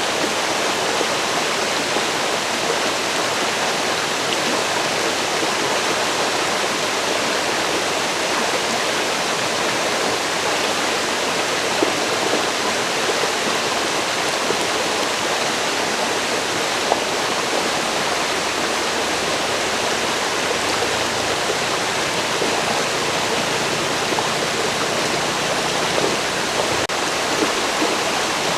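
River water flowing, a steady even rush with no breaks, a little deeper rumble coming in past the middle.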